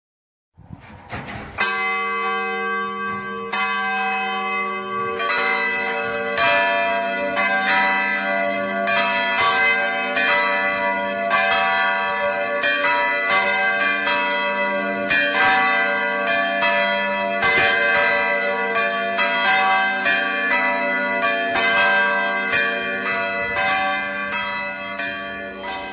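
Church bells ringing, a steady run of overlapping strikes that ring on into each other, starting out of silence about half a second in.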